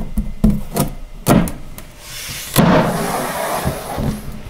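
Melamine top board of a storage cubby being worked down onto its side panels: a run of short knocks, then about two seconds in a longer rubbing slide as the board is shifted to seat the back panel into its groove.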